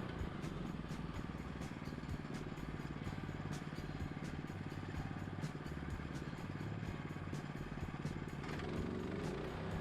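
Gas engine of a portable band sawmill running steadily; its even tone turns rougher for most of the stretch and settles again near the end.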